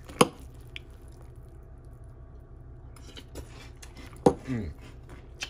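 A spoon clinking against a glass bowl of cereal in milk a few times, with small mouth sounds from chewing. A short vocal sound follows one sharp clink about four seconds in.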